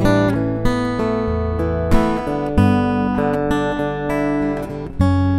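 Gusta GDX130C dreadnought electro-acoustic guitar, matte finish with a solid Sitka spruce top, played plugged in through its Fishman ISY301 pickup. Chords are plucked and strummed with the fingers and left to ring, with a new chord struck every second or so, the strongest near two and five seconds in.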